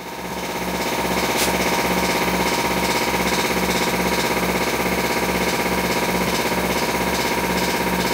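Michelin VCX 100/3 piston air compressor (230 V, 2.2 kW electric motor) starting up and running loud and steady, about 81 dBA at 1.5 m, with a regular pulsing from the pump. Air rushing into the tank is plainly audible, which the owner thinks is due to turbulent flow.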